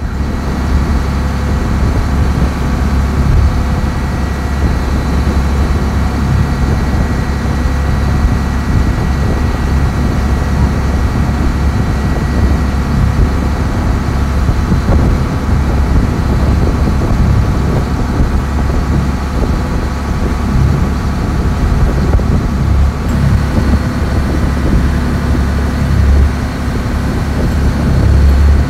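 Taxi boat under way: its engine runs steadily with the rush of water and wind, a loud, unchanging low rumble.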